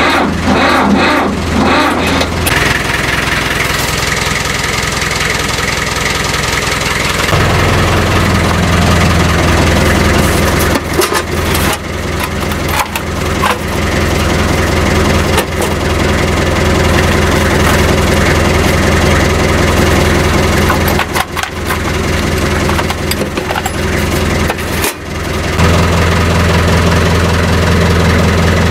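Tractor engine running at a steady idle. Its low note grows stronger about seven seconds in, and the sound breaks off briefly a few times.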